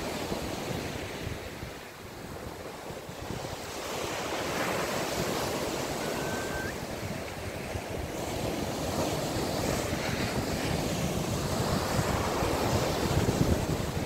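Sea waves breaking and washing up a sandy beach, with wind buffeting the microphone. The surf swells up about four seconds in.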